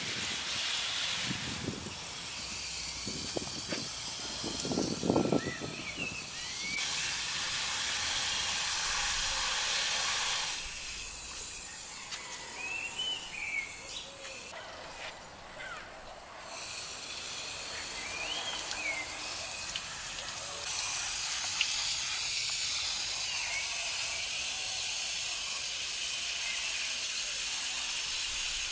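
Birds chirping outdoors over a steady high hiss that shifts level abruptly several times, with a few soft thumps in the first seconds. About two-thirds of the way in, the hiss jumps up and stays loud and even.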